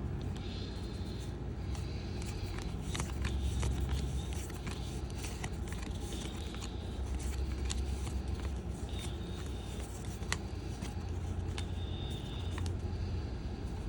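Baseball trading cards being flipped through by hand, with short clicks and soft sliding scrapes of card on card, over a steady low hum.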